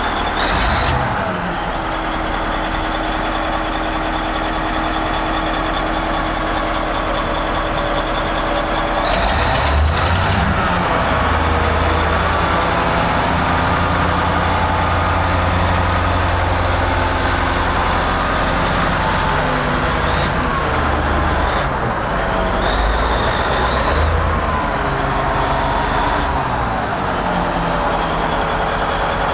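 Caterpillar 771C off-highway dump truck's diesel engine running steadily. From about a third of the way in it gets heavier, with its pitch rising and falling, and it settles back toward an even idle near the end.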